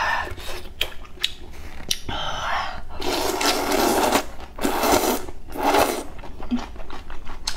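Noodles slurped from a bowl of soup in several long sucks, starting about three seconds in, with light clicks of chopsticks against a metal bowl before them.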